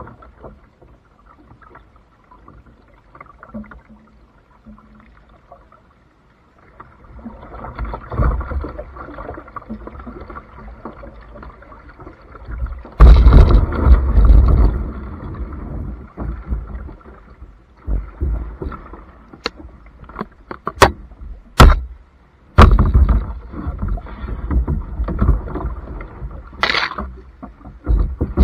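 Kayak paddle strokes splashing and water sloshing against the hull of a Pelican kayak. It is faint for the first few seconds, loudest a little under halfway through, with a few sharp knocks later on.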